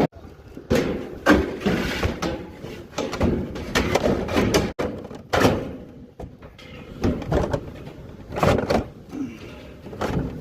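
An uneven series of sudden knocks and bangs, each with a short ringing tail.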